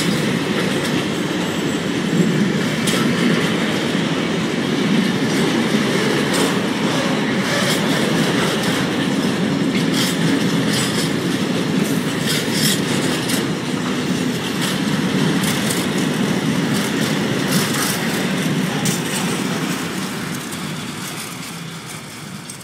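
Freight wagons of a slow freight train rolling past: a steady rumble and rattle of wheels on the rails, with occasional brief high-pitched squeaks. The sound fades over the last few seconds as the end of the train moves away.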